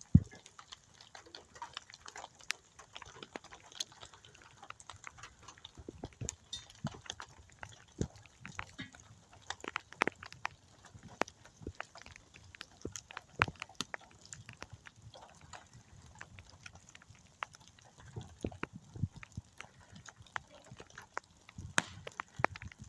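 Irregular drips and taps of rainwater falling from the forest canopy after a storm, scattered through a quiet background.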